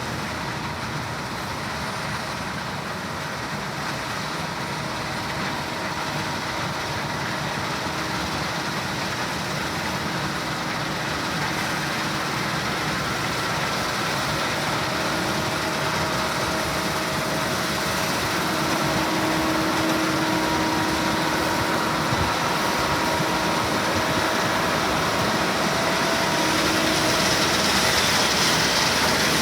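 Case 2388 combine harvester running steadily, engine and threshing machinery making a dense mechanical noise with faint whining tones, gradually getting louder.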